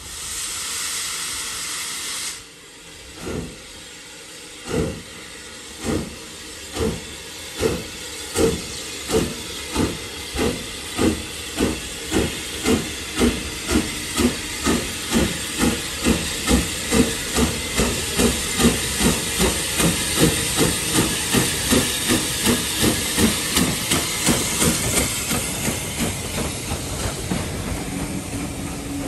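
Austerity 0-6-0 saddle-tank steam locomotive starting a train away: a burst of steam hiss, then exhaust chuffs that begin about a second and a half apart and quicken to about three a second, with steam hissing under them. Near the end the beats blur into the steady running noise of the passing coaches.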